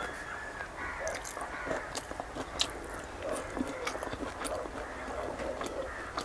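Close-miked chewing and biting of food, with many short sharp clicks of the mouth and teeth.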